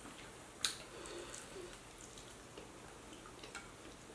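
Quiet eating sounds: faint chewing and small mouth and utensil noises, with one sharp click a little over half a second in.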